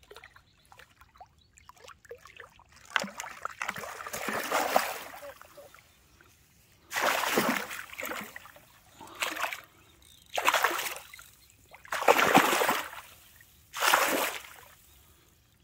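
Water splashing in about six separate splashes, one every one and a half to two seconds, the first one longer than the rest.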